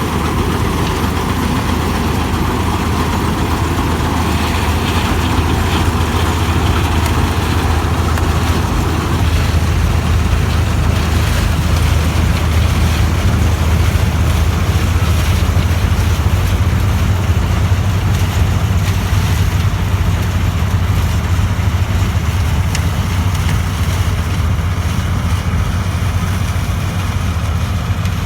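Vishal combine harvester running steadily while harvesting guar: a loud, unbroken low engine hum with a broad machinery noise over it.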